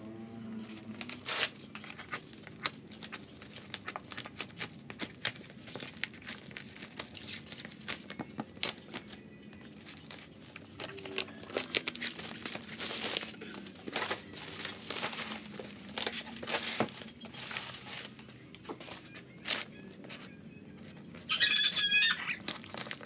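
Scissors snipping through black bubble-wrap plastic, with the plastic crinkling and tearing as it is cut and pulled off a cardboard box, in irregular snips and rustles. A short high warbling sound comes near the end.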